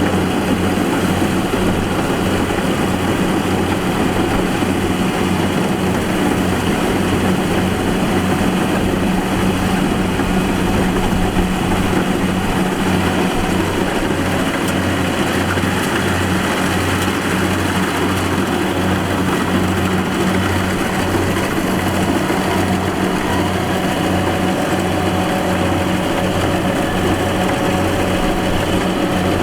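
Rice combine harvester's diesel engine and machinery running steadily, a constant low drone with a dense mechanical clatter above it.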